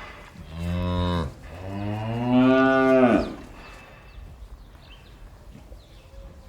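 A cow mooing twice in a barn: a shorter moo, then a longer, louder one, followed by quieter barn background with faint knocks.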